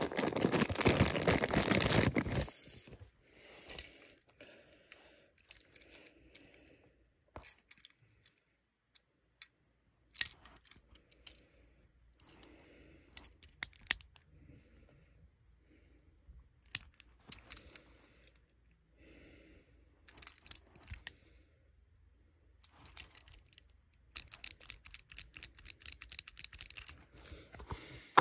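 Thin plastic wrapping bag crinkling for the first two seconds or so as a die-cast Tomica toy car is unwrapped. After that come scattered small clicks and taps from the toy being handled, with a busier run of clicking and rustling near the end.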